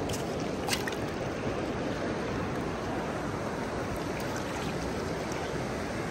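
Fast river current running over the rocks at the water's edge: a steady rush of water, with one brief sharp click a little under a second in.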